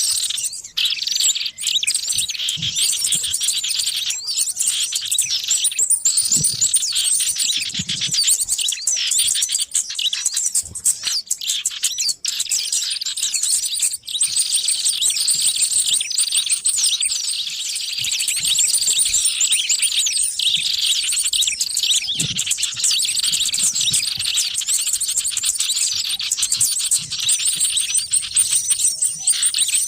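A dense, noisy chorus of many small birds chirping and twittering at once, with overlapping quick high calls: a lure recording made to draw wild small birds in for trapping.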